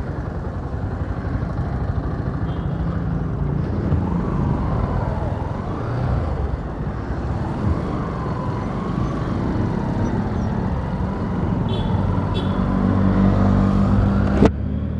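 Bajaj Pulsar motorcycle engine running, first at a standstill and then pulling away and riding along a busy street. The sound is a steady engine drone mixed with traffic noise, growing a little louder as the bike gets under way, and it cuts off abruptly near the end.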